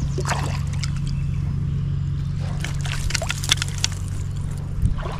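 Water splashing and sloshing, a few strokes about half a second in and a denser run of them from about two and a half to four seconds in, over a steady low rumble of flowing stream water.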